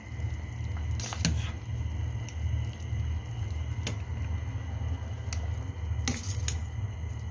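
A metal ladle stirring chicken soup in a stainless steel pot, knocking against the pot in a few sharp clicks, over a steady low hum.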